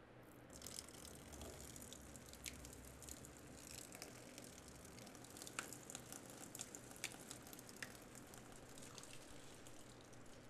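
Blood pouring out of an opened wooden box and running down onto a tablecloth: a faint wet trickle starting about half a second in, with scattered drips.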